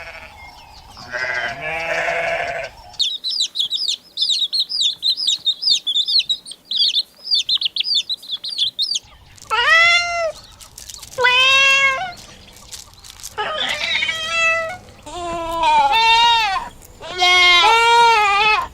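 Livestock bleating: a call about a second in, then a run of rapid high-pitched chirping for several seconds, then repeated drawn-out bleats, each about a second long and rising then falling in pitch.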